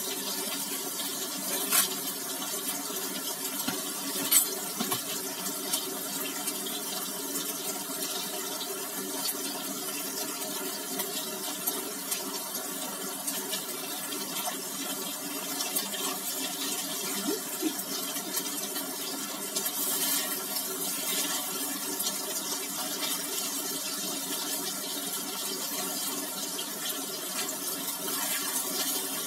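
Tofu slices sizzling in hot oil in a wok, a steady frying hiss. Two sharp clicks of the metal spatula against the wok come within the first few seconds.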